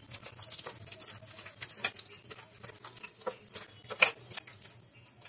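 A hand squishing and turning raw prawns in a wet mustard-yogurt paste in a steel bowl: soft, irregular squelches and small clicks, with a few sharper ticks.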